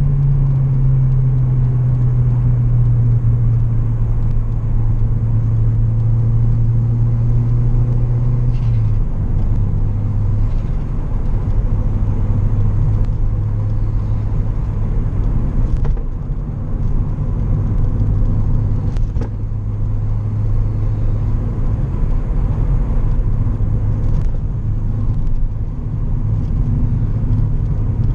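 Turbocharged Toyota Corolla E11's four-cylinder 4E-FE engine with a CT20 turbo, heard onboard, running with a steady low drone. Its pitch drops slightly at the start, shifts once about a third of the way in, and then holds, with a few faint clicks over it.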